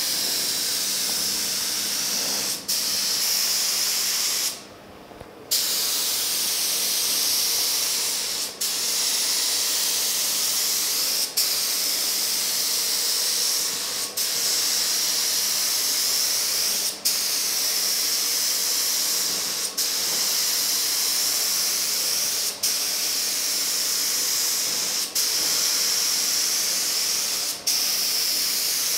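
Gravity-feed spray gun hissing as it sprays reduced polyester primer onto a truck door. The air cuts off for a moment every two to three seconds as the trigger is let go at the end of each pass, with one longer pause of about a second near the start.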